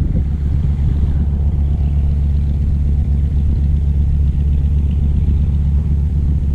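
Steady, loud low rumble of wind buffeting the microphone.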